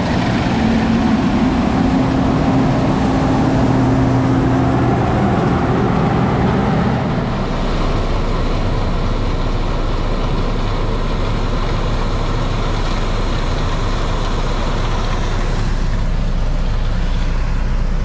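Case IH 2388 combine running steadily under harvest load. About seven seconds in, the sound shifts to a lower, steadier drone.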